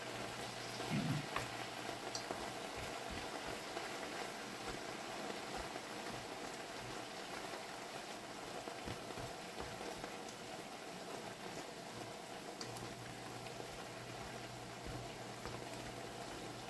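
Leafy greens gently sizzling and simmering in a frying pan as they give off their water, with a few light taps of wooden chopsticks stirring them.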